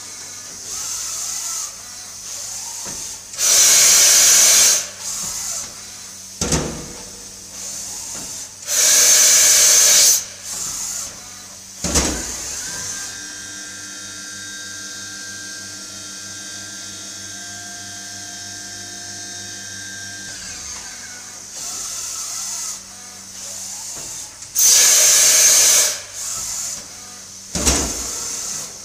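Mazak FJV 25 vertical machining center working through a demonstration cycle. Three loud hissing blasts of about a second each are separated by sharp mechanical clunks. In the middle, a motor whine climbs in pitch, holds steady for about seven seconds, then winds back down.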